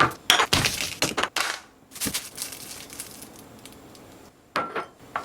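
Short bursts of crinkling and crushing handling noise from food preparation, several close together in the first two seconds, then two brief ones near the end.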